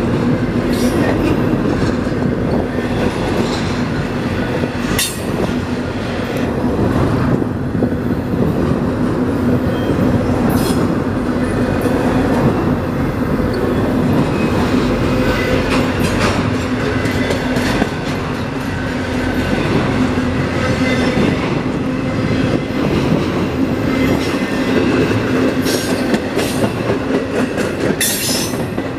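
Intermodal freight cars of a stack train rolling past close by: a steady rumble of steel wheels on the rails, with a low hum and irregular clicks and clacks over the rail joints.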